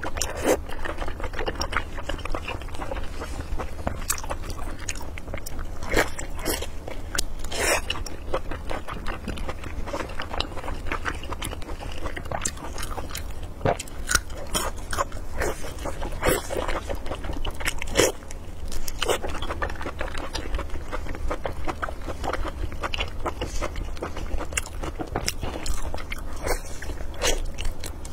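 Close-up eating sounds of a person biting and chewing sauce-glazed pig intestine: a dense run of short mouth clicks and smacks, with a steady low hum underneath.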